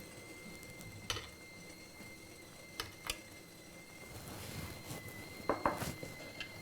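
Faint clicks and knocks of a spoon against a mini idli plate as idli batter is spooned into its moulds, a few single clicks and then a short cluster near the end, over a faint steady high whine.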